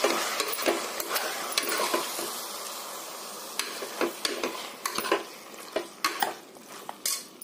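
A steel spoon stirring freshly added raw chicken pieces in a pressure cooker, scraping and clinking against the pot as the chicken sizzles in hot oil and masala. The sizzle fades over the first few seconds, and the scrapes come more spaced out toward the end.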